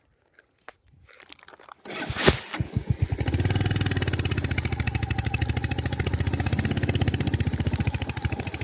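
A vehicle engine starts about two seconds in with a sharp burst, then runs steadily with a fast, even pulse.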